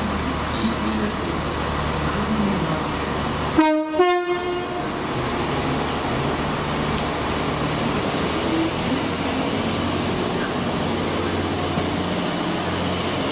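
Train horn giving a brief two-tone blast about three and a half seconds in, over the steady low rumble of a train's engine. A faint high whine rises slowly in pitch through the rest.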